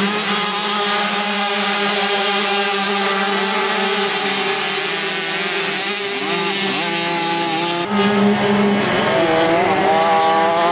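Several motocross bike engines running and revving together, a steady engine note with others rising and falling over it. The sound changes abruptly about eight seconds in.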